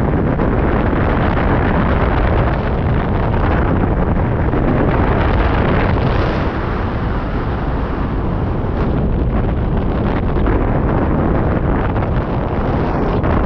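Loud, steady wind noise as the airflow of a hang glider in flight buffets the camera microphone, with a heavy low rumble.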